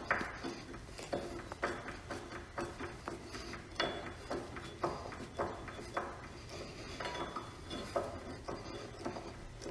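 Screw being driven by hand into the wooden workbench to mount a caster plate, giving a run of uneven clicks and knocks about two a second. The screw is coated with screw wax, which makes it turn easier.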